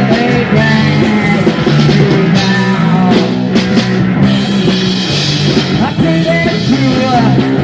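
Rock band playing mid-song, with electric guitar, bass guitar and drum kit at full volume.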